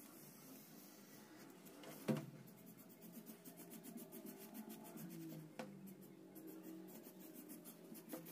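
Marker pen drawing lines on a newspaper pattern, a faint scratching on the paper. A short knock comes about two seconds in, and another in the second half.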